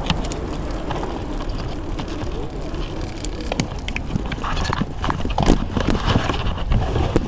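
Wind and road noise on a camera mounted on a road bike being ridden. From about halfway, a run of irregular clicks and rattles from the bike as it slows and pulls in.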